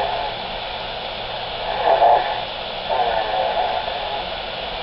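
Baby snoring through a baby monitor's speaker, with the monitor's steady hiss underneath. There are two snores, about two and three seconds in, from a nose stuffed up by a cold.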